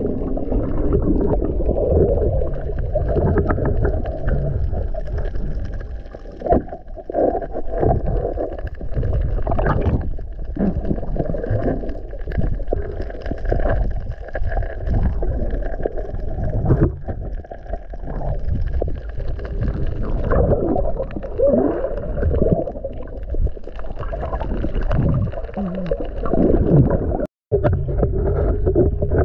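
Muffled underwater sound: a steady low rumble of water against the camera with frequent bubbling, gurgling glides, all dull and without treble. It cuts out for an instant near the end.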